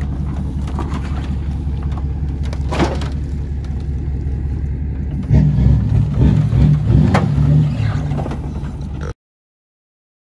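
Ford F-250's 6.4-litre diesel V8 idling steadily, louder and more uneven from about five seconds in, with two sharp knocks. The sound cuts off abruptly about nine seconds in.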